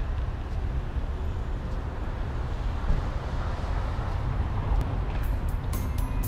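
Steady low rumble of outdoor street background, city traffic and air moving over the microphone. About five seconds in, music with sharp, repeated beats starts over it.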